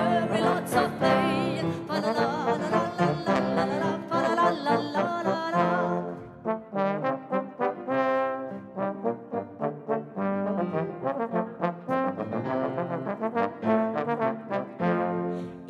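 Two trombones playing chamber music: held notes with a slight waver at first, then short detached notes from about six seconds in.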